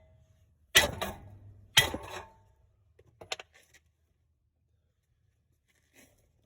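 Two sharp metal-on-metal strikes about a second apart, the second leaving a brief ringing tone, then a few light metallic clicks.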